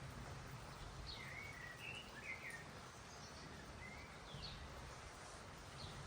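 Songbirds chirping, a scattering of short calls, over a faint steady low rumble of outdoor background noise.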